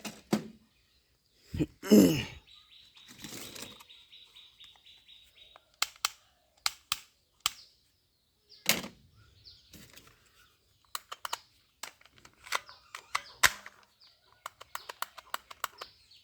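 Sharp clicks and snaps from plastic toy guns being handled and fired. A high pulsing tone runs from about two and a half to five and a half seconds in.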